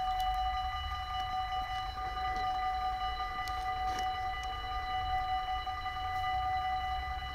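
Dutch level-crossing warning bells ringing steadily with a high, even tone, over a low rumble.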